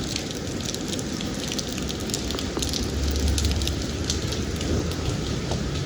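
Steady rain pattering, a dense hiss of many small drop hits, with a low rumble swelling about three seconds in.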